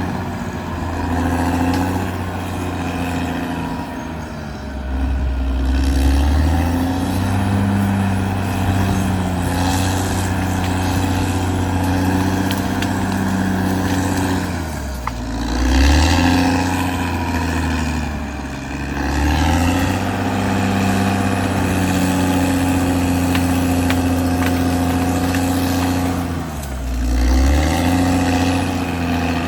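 Caterpillar D6R XL bulldozer's diesel engine working steadily, its note dipping and climbing back up several times, most sharply about halfway through and near the end.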